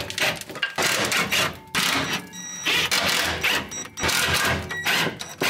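Cordless ratchet running in short repeated bursts, loosening a bolt on the transmission support so the gearbox can be lowered.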